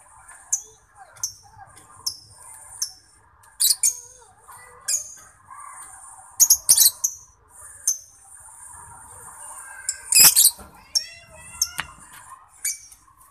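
Lovebird singing: a continuous high-pitched trill broken by sharp, shrill chirps about once a second, with the loudest call about ten seconds in.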